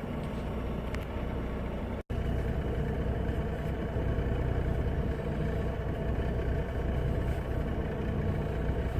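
Semi-truck diesel engine running steadily with a low, even hum. The sound cuts out for an instant about two seconds in.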